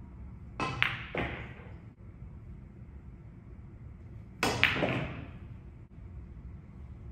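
Two pool shots: a cue tip striking the cue ball, then the sharp clack of billiard balls hitting each other, with a short echo off hard surfaces. The first shot comes about half a second in with a second clack soon after; the second comes about four and a half seconds in.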